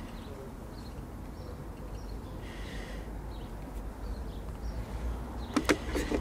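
Quiet outdoor ambience: a steady low rumble with faint, scattered chirps of distant birds. Near the end, a few sharp clicks and rustles close to the clip-on microphone as the hands pinch a split shot onto the line just below it.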